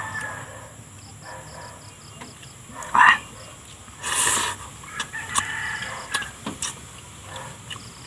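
Mouth sounds of a man eating fried tilapia by hand, sucking and smacking on bits of fish, with chickens clucking in the background. Two short louder sounds come about three and four seconds in.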